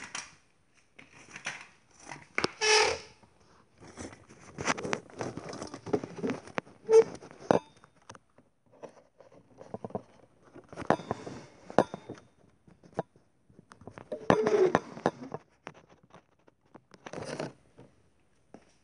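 Irregular bursts of clicks, knocks and crackling rustles from objects being handled, with a rattan chair moved close by and the phone handled.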